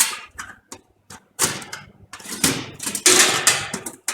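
Metal clattering and scraping of a desktop PC case being handled as a floppy disk drive is pushed into its drive bay, in quick irregular knocks with the loudest about three seconds in.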